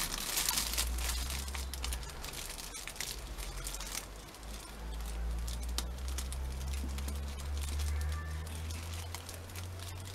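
Clear cellophane bag crinkling and rustling with many short crackles, densest in the first second or so, as it is gathered and a plastic pull-bow ribbon is worked around it. A low hum runs underneath.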